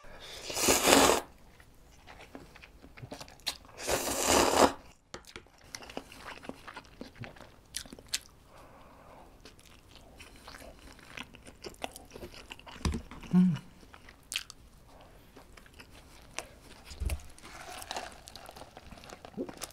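Close-miked eating: two loud slurps of instant ramen noodles in the first five seconds, then chewing with many small wet clicks and crunches. Near the end comes a softer sip through a straw.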